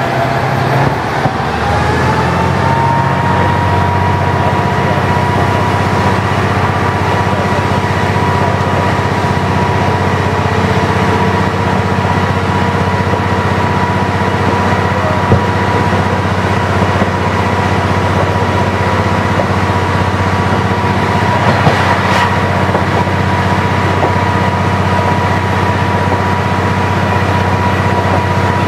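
KiHa 40 diesel railcar under way: a steady diesel drone with a high whine that rises over the first couple of seconds and then holds a steady pitch. A single sharp click sounds about 22 seconds in.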